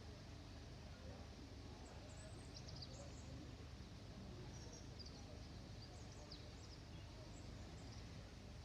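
Faint ambience: a steady low rumble with birds giving short high chirps every so often.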